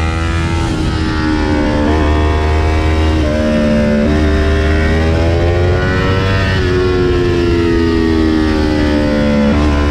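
Kawasaki Ninja 400's parallel-twin engine under way, its pitch climbing and dropping with throttle and gear changes. About two-thirds through the note jumps up and then falls slowly as the bike slows on engine braking, over a steady rumble of wind.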